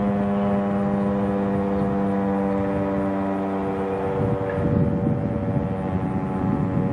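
Federal Signal STH-10 dual-tone electromechanical siren sounding a loud, steady chord. About four seconds in, its lowest tone fades and a rough low rumble rises beneath the higher tones.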